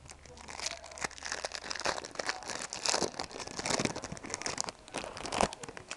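Foil Yu-Gi-Oh! booster pack wrapper crinkling and crackling as it is torn open and handled, a dense run of irregular crackles.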